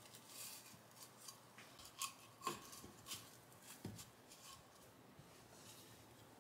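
Faint scattered clicks and scrapes of small objects being handled, with a few light knocks; the loudest two come about two and a half seconds in, one leaving a brief ringing tone, and it goes quieter after about four and a half seconds.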